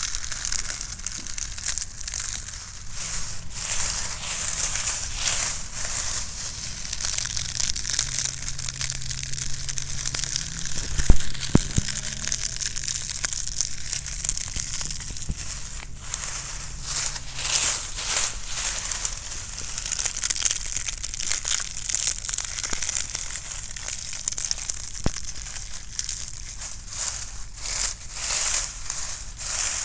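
Dry leaves being crunched and crushed, a continuous crackling with many small snaps and one sharp, louder snap about eleven seconds in.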